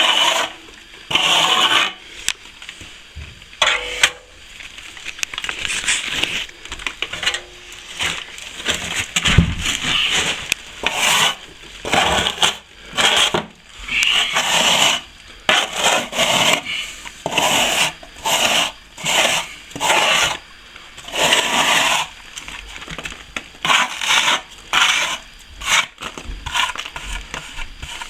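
Scraper rasping across a partly set sand-and-plaster patch, scraping it back level with the surrounding plaster in repeated strokes, about one to two a second, with short pauses between runs.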